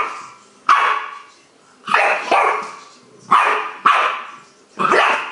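Staffordshire bull terrier puppy barking repeatedly: a string of sharp barks roughly a second apart.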